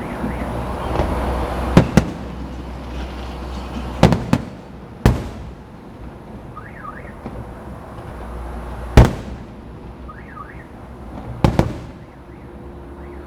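Aerial fireworks shells bursting: a string of sharp booms, some in quick pairs, the loudest about nine seconds in, over a steady low rumble.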